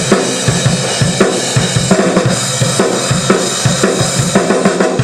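Drum kit played hard in a steady rock beat: bass drum and snare strikes under a constant cymbal wash.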